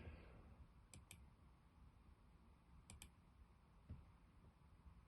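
Faint clicking at a computer in a quiet room: two quick double clicks about two seconds apart, and a soft thump a little later.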